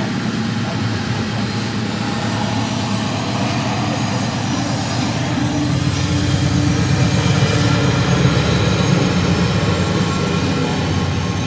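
Train passing: a diesel locomotive's engine running with a steady rumble and the noise of the moving train, growing louder to a peak about eight seconds in, then easing off.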